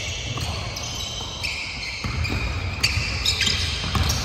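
Basketball bouncing on a hardwood gym court during a pickup game, over the general noise of the hall, with a few sharp bounces in the second half.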